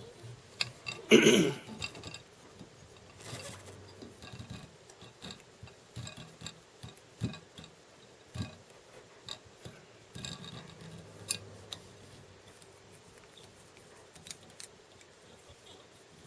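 Small clicks, ticks and rustles of fly-tying tools and materials being handled at a vise, with a louder rustle about a second in.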